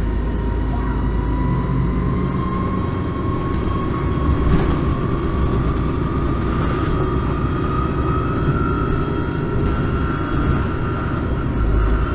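Interior ride sound of a MAN Lion's City Hybrid bus under way. The electric drive's whine rises slowly in pitch as the bus gathers speed, over a steady low rumble, with a few brief knocks and rattles about halfway through.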